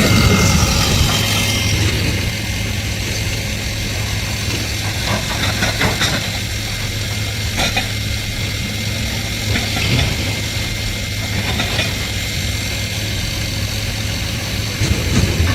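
Heavy diesel earthmoving machinery running steadily at a low rumble, with a few short knocks or clanks scattered through it.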